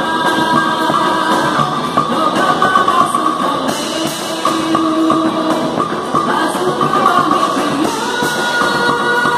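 A band playing quadrilha junina music, with singing over it.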